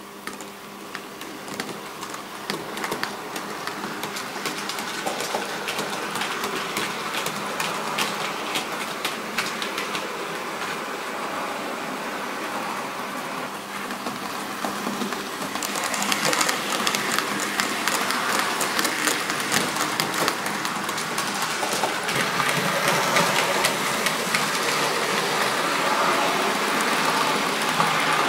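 TT-scale model trains running on the layout track: a steady rattle of small wheels clicking over the rails with a motor whirr. It grows louder about halfway through as a train passes closer.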